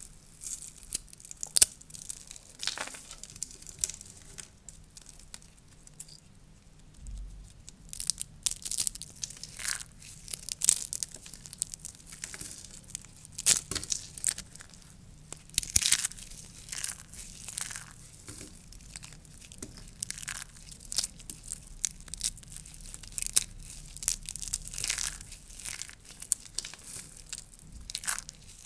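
Dry soap curls being crushed and broken apart: irregular, crisp crackling and crunching with sharp snaps, thinning out for a few seconds before picking up again.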